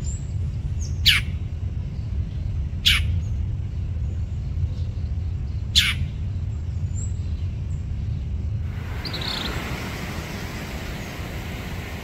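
Northern mockingbird giving three short, harsh calls a couple of seconds apart over a low steady rumble. About two-thirds through, a broad rushing noise like wind takes over.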